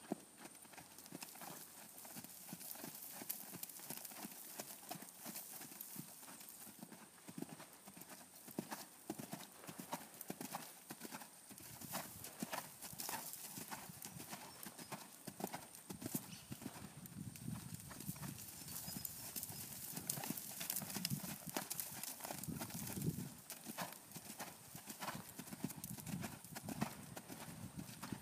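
Hooves of a ridden horse clomping around a sandy arena in a steady, even rhythm, growing louder in the second half.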